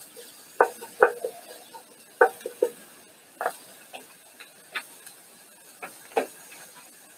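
Irregular light knocks and clicks of a wooden spoon against a cast-iron Dutch oven while diced vegetables are stirred in it, the loudest about a second in.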